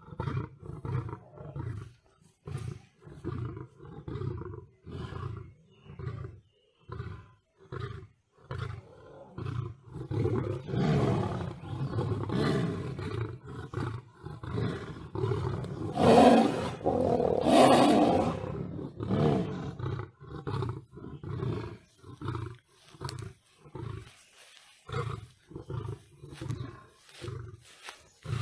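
Lions roaring: a long series of low, rhythmic roars and grunts, about two a second, swelling to its loudest about halfway through.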